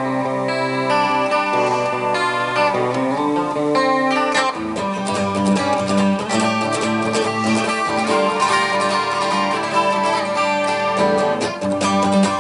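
Background music led by guitar, with many quick plucked notes and a change of chord partway through.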